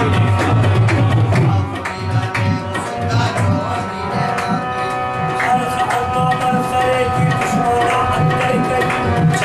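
Live qawwali music: a harmonium sounds sustained notes over steady hand-drum strokes. From about four seconds in, the lead singer's voice holds a long note.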